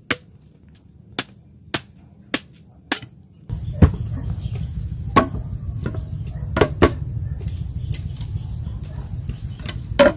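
A bamboo stake being driven into earth with a hand tool: six sharp knocks a little over half a second apart. Then louder, irregular knocks as bamboo poles are struck and set into a frame, the loudest near the end.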